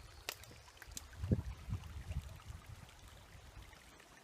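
Small woodland creek flowing faintly, with a few soft low thumps in the first couple of seconds.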